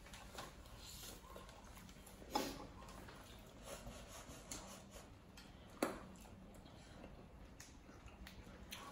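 Close-miked eating of a seafood boil: quiet chewing and wet smacks, with two sharper clicks, about two and a half and six seconds in.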